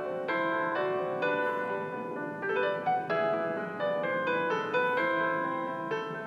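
Background music: a melody played on a piano-like keyboard, moving from note to note at a steady pace.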